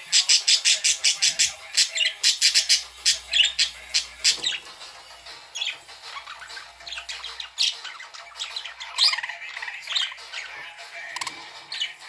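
Several pet budgerigars calling: a fast run of sharp chirps for the first four seconds or so, then sparser, varied chirps.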